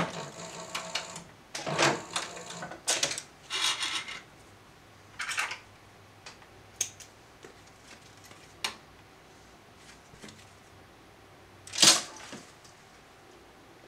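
Scattered clicks and rustles of hands handling a stitched leather piece at a stopped leather sewing machine, with one louder, sharper noise about twelve seconds in as the leather is pulled away.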